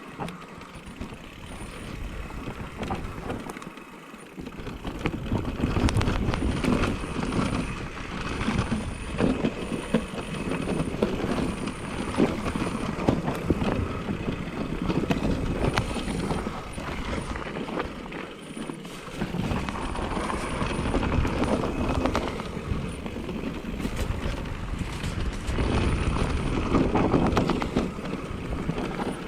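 Specialized Turbo Levo electric mountain bike riding fast downhill on a dirt trail. The tyres rush over the ground, and the chain and frame rattle and clatter with many small knocks over roots and rocks, easing off briefly twice.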